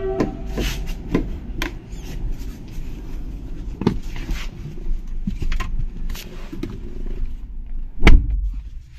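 Clicks, knocks and rustling as someone opens a car door and climbs into the driver's seat, then one loud thump about eight seconds in as the door is shut.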